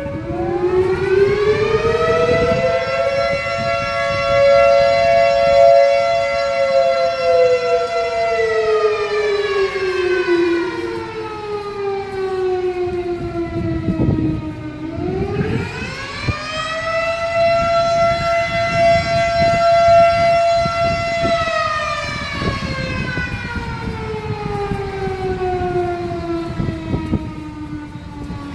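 Two fire station alarm sirens wailing at the same time, at different pitches that clash. They wind up over a few seconds, hold, then slowly wind down. Halfway through they wind up again, followed by a long slide down near the end.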